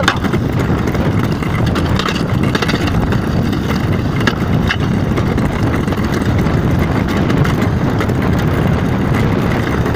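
A car driving along a snowy road: a steady low rumble of engine and tyres, with a few light knocks.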